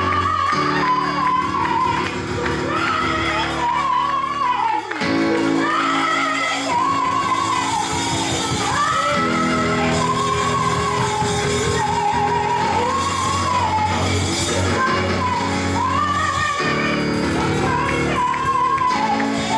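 Gospel song in a church service: a sung melody over instrumental accompaniment with long held chords, echoing in a large hall.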